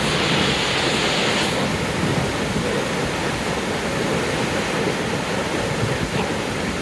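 Steady rushing roar of High Force waterfall, the River Tees dropping 21 metres into its plunge pool, with a brighter hiss in the first second or so.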